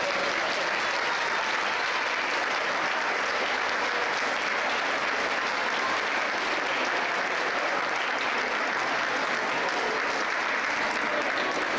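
Applause: many hands clapping steadily.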